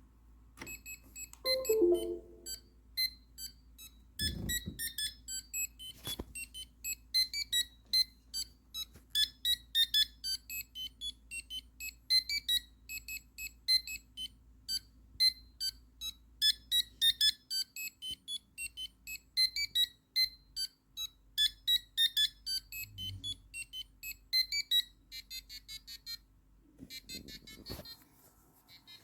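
Electronic buzzer playing a ringtone melody as a quick run of short, high-pitched beeps at changing pitches. It stops near the end.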